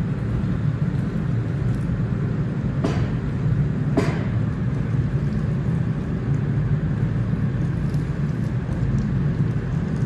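Steady low foundry rumble while molten bell bronze is poured from a ladle into a bell mould, with two sharp clicks about three and four seconds in.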